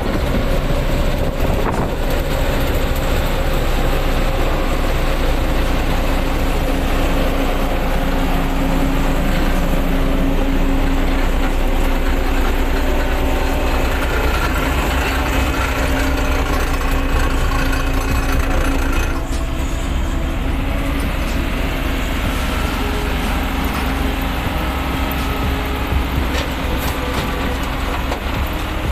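Excavator's heavy diesel engine working under load, running steadily with its pitch shifting slightly. It eases off a little about two-thirds of the way through.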